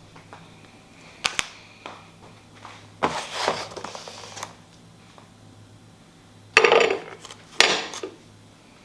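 Objects being handled indoors, likely kitchenware: a quick double click, then short bursts of scraping and rustling, the loudest two near the end.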